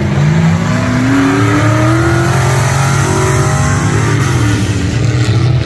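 Dirt-track vintage-class race car engine accelerating, its pitch rising over the first two seconds or so and then holding steady, over a steady lower engine drone.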